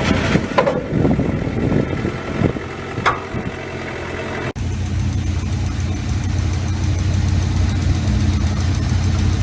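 Engine running, with a few knocks in the first half; about halfway in the sound cuts abruptly to a steady, low engine idle.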